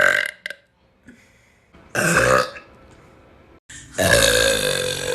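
A woman burping three times: one burp tails off at the start, a short one comes about two seconds in, and a long drawn-out one begins about four seconds in. Each starts abruptly.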